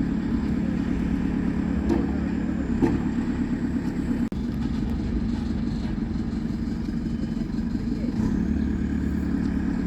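Steady low rumble of a moving vehicle, engine and road noise, with a brief dropout about four seconds in.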